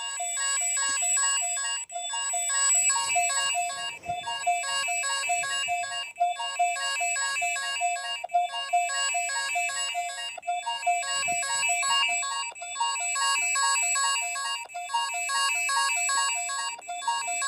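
Synthesized emergency alert tone: a cluster of high electronic pitches pulsing in a fast, repeating on-off pattern, like a ringtone.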